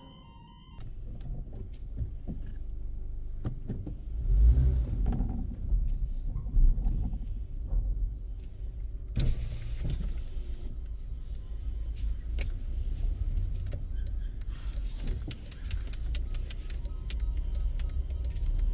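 Low rumble of a car moving off inside a car park, with scattered clicks and knocks. A short electronic chime melody cuts off about a second in.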